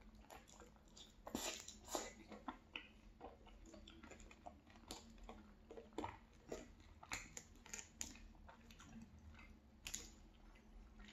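Quiet close-miked chewing of gravy-covered fries with shredded cheese: irregular soft, wet mouth smacks and clicks, a few every second.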